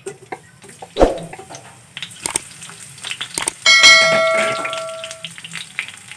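Garlic cloves dropping into hot oil in a frying pan, with light sizzling and scattered clicks and knocks against the pan and plate. A little past halfway, a bell chime rings out and fades over about a second and a half: a subscribe-button sound effect.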